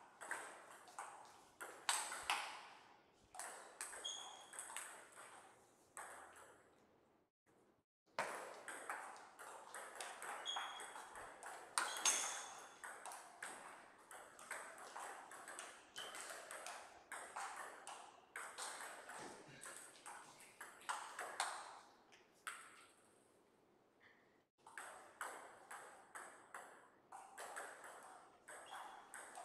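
Table tennis rallies: a celluloid-type table tennis ball clicking off rubber paddles and bouncing on the table in quick runs of sharp ticks, each with a short ring in the hall. The runs break off briefly twice, between points.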